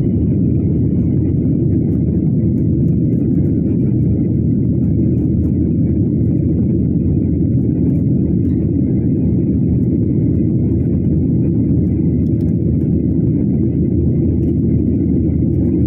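Steady low rumble inside a moving vehicle's cabin, even in level throughout.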